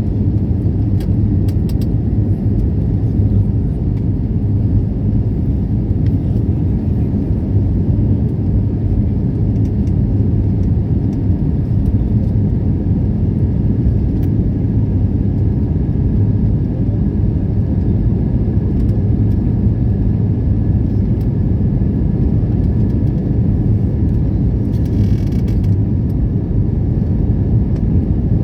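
Steady low rumble of an Airbus A320neo in flight or on its takeoff run, its CFM LEAP-1A engines and airflow heard from inside the cabin, with a faint steady whine above the rumble.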